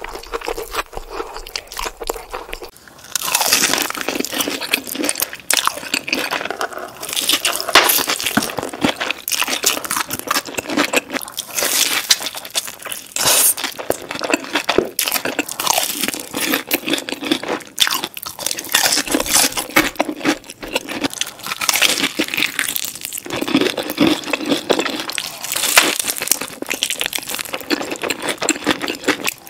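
Crunching and chewing of food coated in crushed Hot Cheetos, bite after bite, quieter for the first few seconds and then a dense, continuous crunch.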